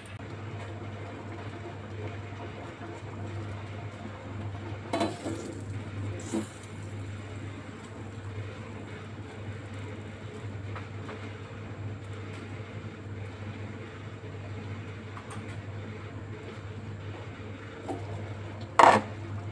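Metal cookware clinking over a steady low hum: a couple of knocks of a saucepan and its lid about five and six seconds in, and a loud clank near the end as the glass lid is lifted off the simmering stainless saucepan.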